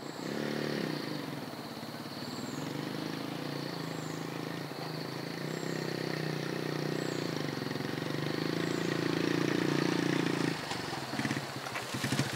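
Motorcycle engine approaching along a track, its pitch dipping at first, then running steadily and slowly rising before it drops away about ten and a half seconds in.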